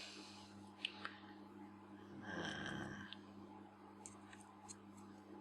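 Faint light clicks and taps of small lens parts being handled, over a steady low electrical hum, with one short tonal sound about two and a half seconds in.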